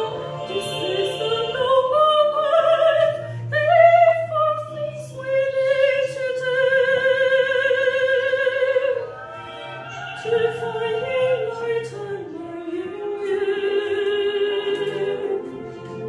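A woman singing a Buddhist devotional song solo in long, held notes with strong vibrato, over a soft sustained backing accompaniment. The singing is quieter for a few seconds past the middle, then a lower held phrase follows.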